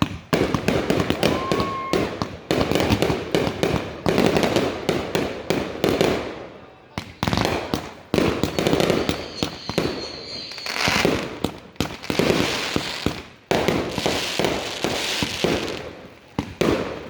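Consumer fireworks going off in quick succession: many sharp bangs with crackling between them. A short whistling tone comes about a second and a half in, and a thin high whistle runs for about two seconds past the middle.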